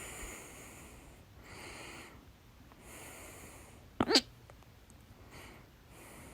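A woman's hiccup: one loud, sharp hic with a brief voiced squeak about four seconds in, between several audible breaths in and out.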